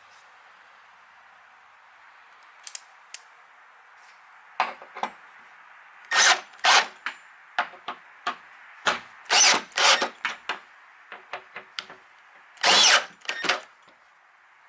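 Cordless drill/driver with a Phillips bit driving screws into wood in a series of short trigger bursts, starting about four and a half seconds in.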